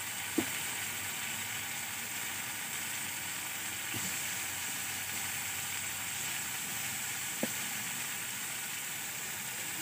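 Onion and spice masala sizzling steadily in mustard oil in an iron kadai as boiled dough fingers are dropped in, with three faint knocks spread through it.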